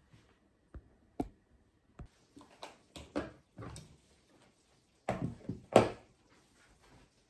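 Kitchen tongs and ceramic dishes knocking and clattering: a few separate clicks, then a busy run of knocks, the loudest about six seconds in.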